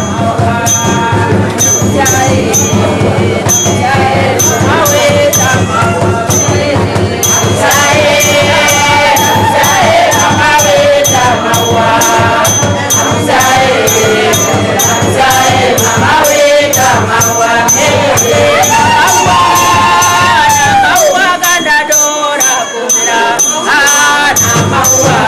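Congregation singing a lively church song together, with a steady percussion beat of about two strikes a second.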